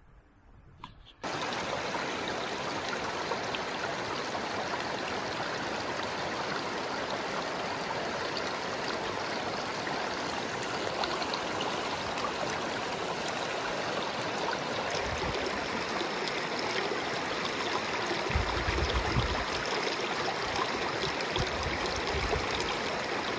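Mountain stream rushing, a steady even noise that cuts in abruptly about a second in, with a few low bumps near the end.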